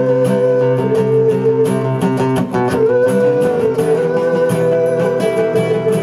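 Two acoustic guitars playing together, strummed chords under a melody of long held notes that change pitch every second or two.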